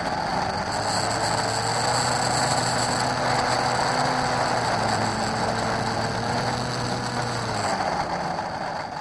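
Onboard camera sound of a HobbyKing Drifter Ultralight foam RC plane rolling on asphalt: a steady rattling rumble from the wheels and airframe, with the faint, slightly wavering whine of its brushless motor. The sound starts to fade out near the end.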